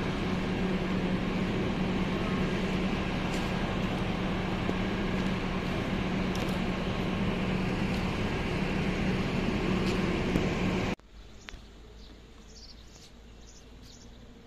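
Steady running noise and low hum of a moving vehicle, heard from inside. It cuts off suddenly about eleven seconds in, leaving a quiet background with faint, repeated high chirps.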